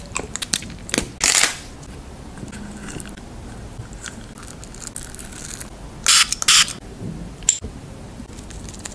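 Close-miked sounds of biting and chewing gummy candy: sharp clicks and crackles, with short hissing, crunchy bursts about a second in and again around six seconds in.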